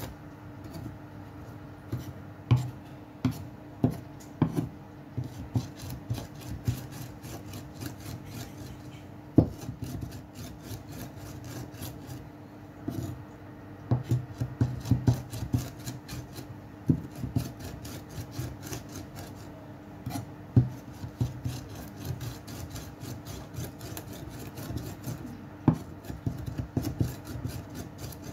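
Mezzaluna rocked back and forth through diced vegetables on a wooden cutting board: a continuous scraping and chopping of the blade on the wood, with sharper knocks every so often.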